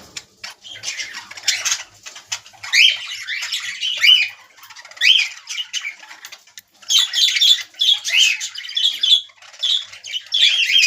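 Budgerigars squawking and chattering: runs of short harsh calls mixed with quick rising chirps, coming in bursts with a brief lull about two-thirds of the way through.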